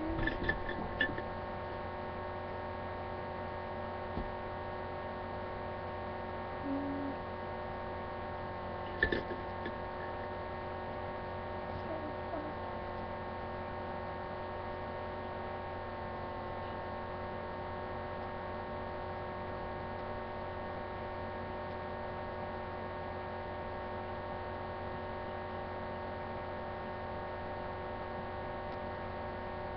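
Steady electrical hum, a buzzing drone made of several held tones, with a few faint knocks, the clearest about nine seconds in.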